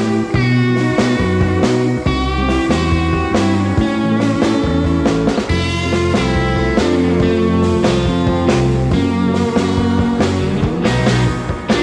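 Rock music with electric guitar, bass and drums.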